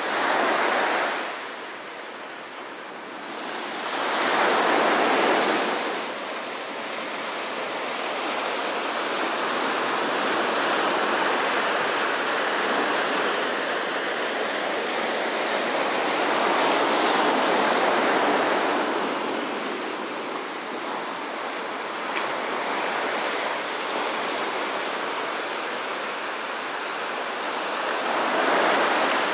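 Small ocean waves breaking and washing up a sandy beach. The rushing surf swells and ebbs as each wave comes in.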